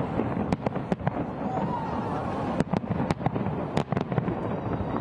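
Fireworks going off: a string of sharp bangs at irregular intervals, several coming close together in the second half, over a background of crowd voices.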